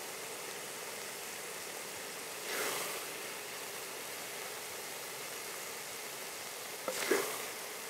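Wooden spoon scooping and stirring thick chutney in a steel bowl: two short, soft scraping swishes, one a couple of seconds in and one near the end with a small click of the spoon just before it, over a steady hiss.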